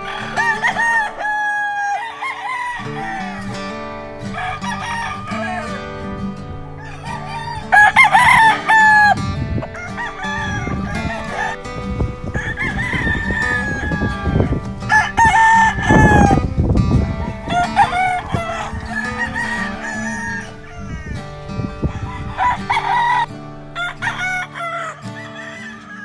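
Gamefowl roosters crowing several times, one crow after another, over background music.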